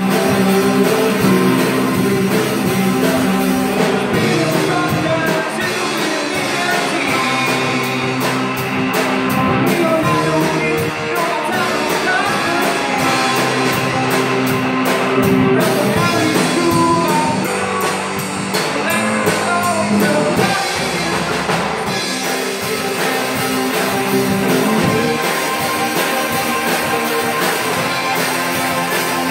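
Live rock band playing: drum kit, electric guitars and bass, with a man singing into the microphone.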